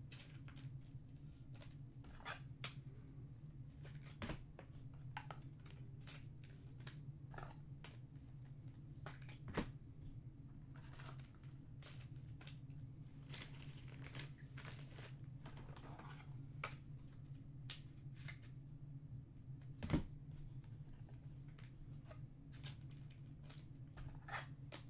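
Trading cards and their packaging being handled at a table: scattered soft clicks, slides and rustles, over a steady low electrical hum.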